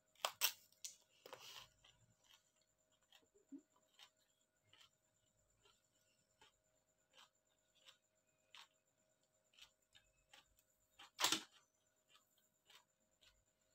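A raw cucumber bitten with a crisp crunch, two or three loud snaps in the first second and a half, then quiet chewing with faint mouth clicks, and one more sharp crunch about eleven seconds in.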